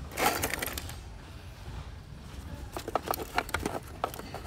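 A gloved hand rummaging through a plastic tackle box of fishing tackle: a rustle just after the start, then a quick run of light clicks and clinks from metal snap swivels and spools being moved, about three seconds in.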